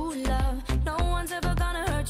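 Upbeat background music with a steady, heavy bass beat and a bending melodic lead line.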